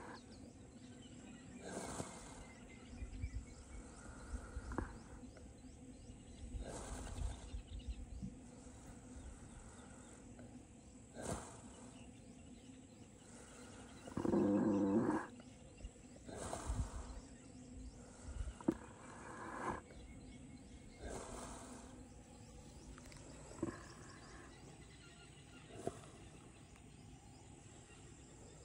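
A sleeping baby elephant breathing, with a soft breath every two seconds or so. About halfway there is one much louder, low snore lasting about a second.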